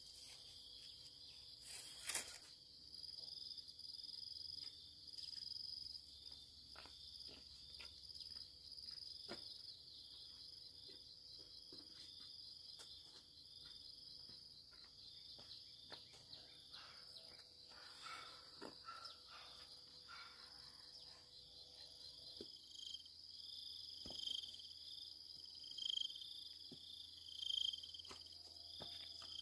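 Steady, high-pitched chorus of crickets and other insects, with scattered faint clicks and knocks. From about three-quarters of the way through, a frog calls over it about once every second and a half.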